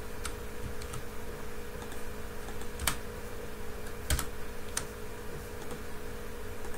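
A few isolated computer keyboard key presses, sharp single clicks with the loudest about three and four seconds in, over a steady low electrical hum.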